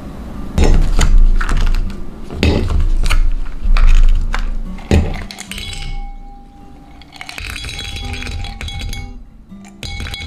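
Frozen carrot-juice ice cubes being popped out of a plastic heart-shaped ice-cube tray and dropped into a clear beaker. There is a run of sharp clicks and clinks in the first half, then sparser small knocks, over soft background music.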